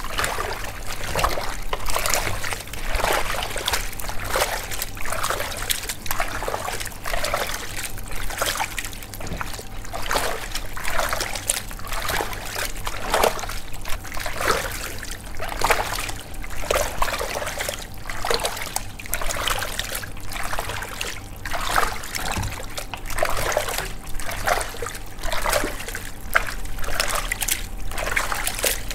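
Raw chicken wings being mixed by hand in a watery marinade in a large metal basin: wet squelching and sloshing in repeated, irregular strokes, about one or two a second.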